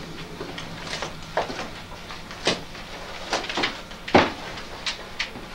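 Scattered knocks and clicks of papers and objects being handled and set down on a table, at irregular intervals; the loudest knock comes about four seconds in.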